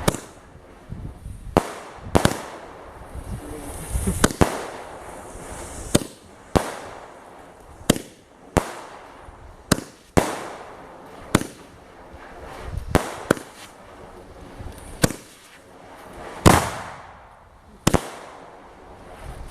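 Vintage Brothers 25-shot fireworks cake firing its shots one after another, a sharp report roughly every second, with a brief hiss trailing some of them.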